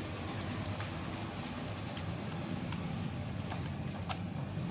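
Scattered faint clicks of a computer mouse being clicked while a Word table is edited, a few irregular clicks a second at most, over a steady low hum.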